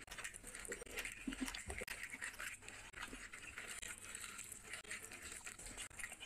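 Fingers tearing and picking apart grilled whole chicken on a plate, close-miked: a dense run of small crackles and clicks.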